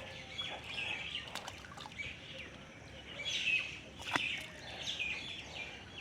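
Small birds chirping, with a few sharp clicks or knocks in between.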